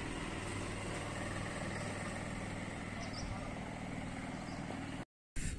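Steady hum of a motor vehicle engine idling, with a constant low drone under outdoor background noise; it cuts off abruptly near the end.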